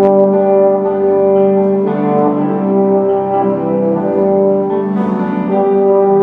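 Orchestra playing a slow piece: long held notes of a melody, moving to a new pitch every second or so.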